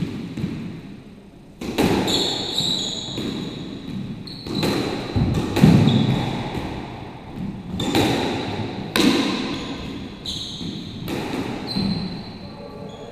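Squash rally: the ball cracking off rackets and the court walls in quick succession, with an echo after each hit, and rubber-soled shoes squeaking on the wooden court floor between shots.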